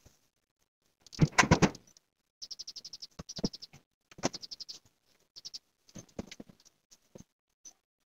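A pen scratches on paper over a clipboard, with a clatter of knocks about a second in, and small birds chirp in the background.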